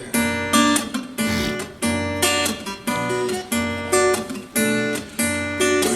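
Acoustic guitar strummed in chords, a steady strumming rhythm with no singing: the instrumental break of a guitar song.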